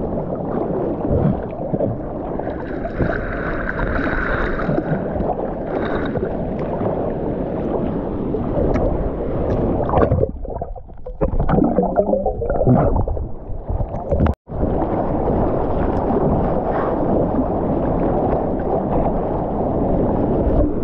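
Seawater sloshing and splashing around a GoPro held at the sea surface. It turns muffled for a few seconds in the middle as the camera dips underwater, with a brief total dropout soon after.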